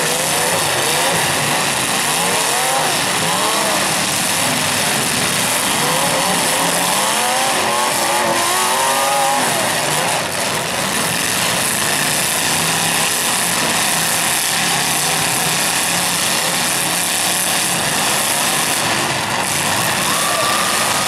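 Demolition derby cars' engines running loudly and continuously, with drivers repeatedly revving up and down: rising and falling engine pitch in bursts a couple of seconds and again about six to nine seconds in.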